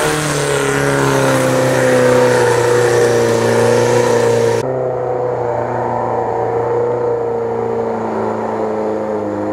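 Off-road 4x4's engine held at high revs under load as it climbs a steep, loose forest slope, its note steady. About halfway through the sound turns duller and slightly lower.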